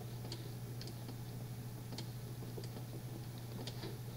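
Faint, scattered taps and clicks of the writing tool as a word is handwritten on a computer screen, over a steady low hum.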